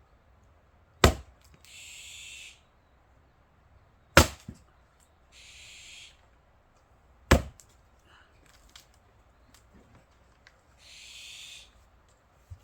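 Three heavy axe strikes into pine rounds, about three seconds apart, as a Fiskars X27 splitting axe splits firewood. Short hissing noises come between the strikes.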